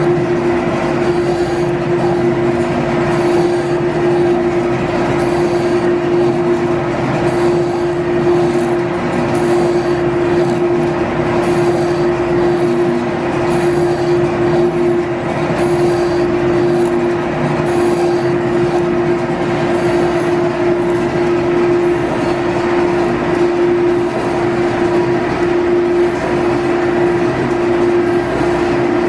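Electric-driven G&E metal shaper running steadily, its ram stroking back and forth about once a second while a shear tool takes a finishing cut on steel. A steady motor hum runs under the cutting strokes.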